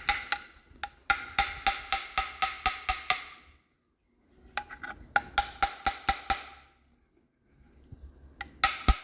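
Quick runs of light metal taps on an engine's oil pickup tube, about four a second, each with a short ring, in three bursts with short pauses between. The tube is being bent away from its strainer screen so the screen is no longer blocked.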